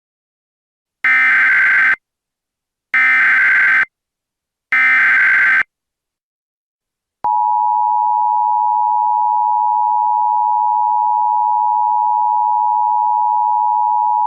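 Emergency Alert System SAME header: three short bursts of buzzy digital data tones, each about a second long, followed about seven seconds in by the steady two-tone EAS attention signal that marks the start of a new alert.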